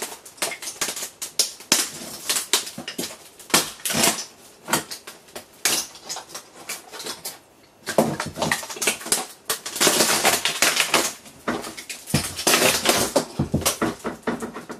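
Glued-in LCD panel of a curved monitor being pried and peeled off its frame: a fast, irregular run of crackles, clicks and snaps as the adhesive tears loose and the panel and plastic frame flex. The crackling grows denser and louder past the middle and again near the end.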